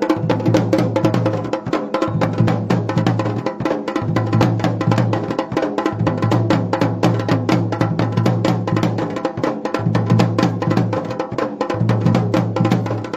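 Dhol and damau drums played together in a fast, dense folk rhythm, with a deep low tone that cuts in and out every second or two.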